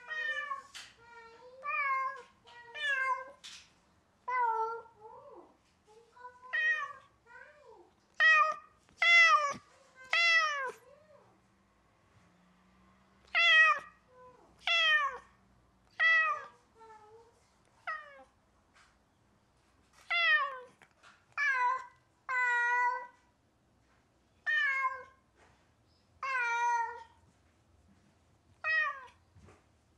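Domestic cat meowing loudly and over and over, about twenty separate cries, each a short call that falls in pitch: a cat calling insistently for an absent owner.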